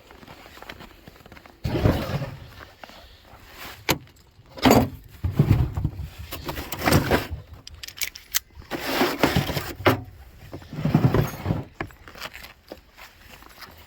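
Metal hand tools clinking and rattling as they are rummaged through, in irregular bursts of handling noise.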